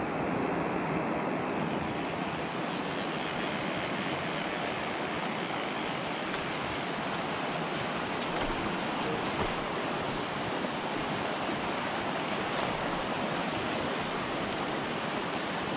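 A mountain trout creek running high in flood after days of rain: a steady rush of fast water.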